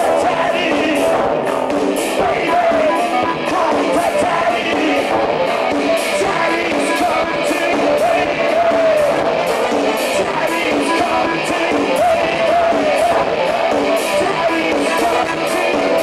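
Live electronic body music played loud through a club PA: a steady electronic beat under a male lead vocal, recorded from the crowd on a Hi8 camcorder.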